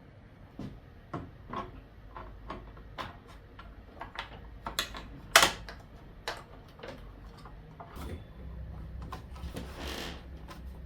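Access panel of a table saw being fitted and locked: a run of irregular clicks and knocks, the loudest a sharp knock about five seconds in. A low hum and a brief rustle follow in the last few seconds.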